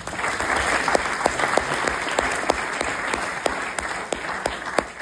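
Audience applauding: many hands clapping at once, with a few louder single claps standing out.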